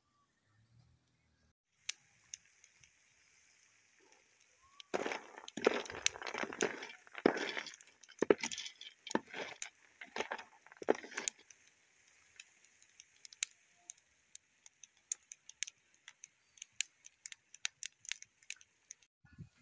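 Palm kernels roasting in a metal pot, hissing and popping with many small sharp cracks as they release their oil. From about five to eleven seconds in, a spatula stirs them, the kernels rattling and scraping against the pot in loud strokes. The hiss cuts off near the end.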